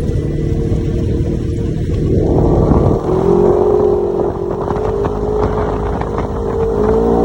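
Side-by-side UTV engine running while under way, over a steady rushing noise; its pitch rises about two to three seconds in and rises again near the end.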